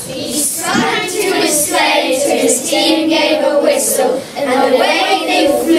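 A group of children's voices reciting in unison, with many voices blurred together into one chorus.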